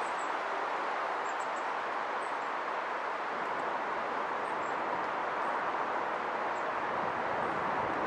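A steady, even rush of outdoor background noise, with a few faint, short high ticks in the first couple of seconds.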